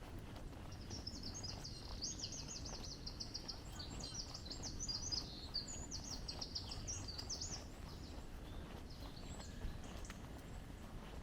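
A small songbird singing a run of rapid, high trilled phrases for several seconds, over a steady low background noise.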